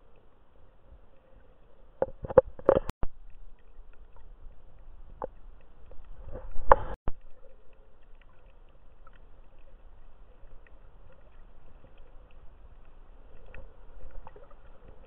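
Muffled underwater sound picked up by a camera in its waterproof housing: a low steady hiss of water, broken by sharp knocks and splashy thuds, a cluster about two seconds in and the loudest near seven seconds, with a few light ticks between.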